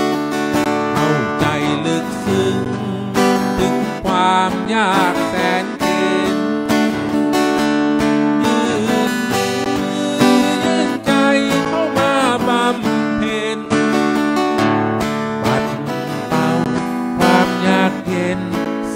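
Live acoustic guitar music: a steel-string acoustic guitar strummed steadily, with a wavering melody line above it.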